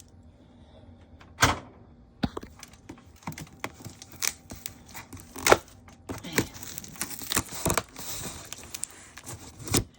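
Scissors snipping and working at the tight packing of a boxed dehumidifier: scattered sharp snaps and clicks, with rustling and tearing of the wrapping in the second half.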